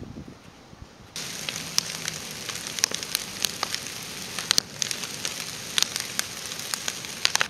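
Large bonfire of stacked logs and green branches burning, crackling with many sharp, irregular pops and snaps over a steady hiss. It starts suddenly about a second in, after a quieter stretch.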